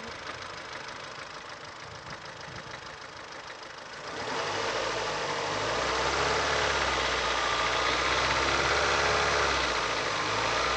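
Ford Fusion's 1.4 Duratec four-cylinder petrol engine running with a rapid ticking knock, then brought up to a steady higher speed, around 1800 rpm, about four seconds in, where it stays louder. The owner takes the knock for the valves.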